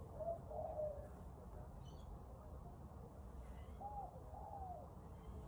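A dove cooing faintly, two short cooing phrases about three and a half seconds apart, with a faint higher bird chirp between them.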